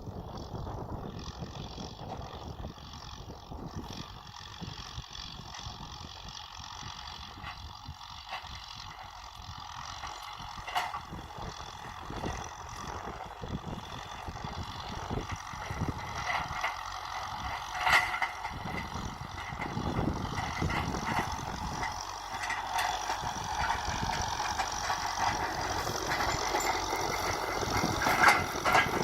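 Kubota M6040 SU tractor's diesel engine running while ploughing, with scattered knocks and rattles, growing louder toward the end.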